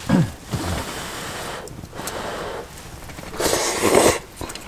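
A person eating hot pot from a metal bowl: two short murmured grunts near the start, then breathy blowing on the hot food and a loud slurp of broth about three and a half seconds in.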